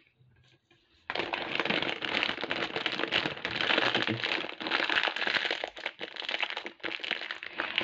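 Clear plastic bag of glass seed beads crinkling and crackling as hands squeeze and work it, starting about a second in and going on steadily.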